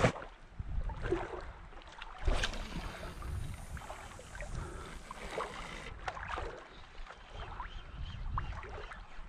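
Shallow water sloshing and lapping with small scattered splashes, over a low wind rumble on the microphone.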